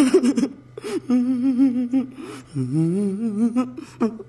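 A voice making two drawn-out, wavering vocal notes without words, the second starting low and rising, over a faint steady low hum.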